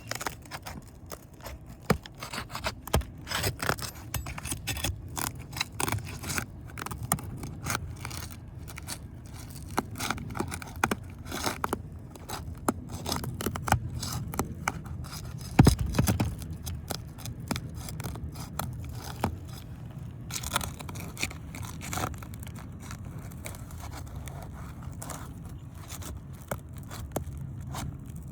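Metal pry bar scraping and clicking under a roof shingle in irregular strokes as it is worked loose, with one louder knock about halfway.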